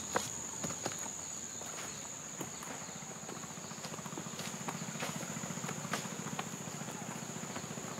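Steady high-pitched drone of insects, with scattered footsteps and twig snaps on a forest trail. A low, fast buzzing comes in about two and a half seconds in.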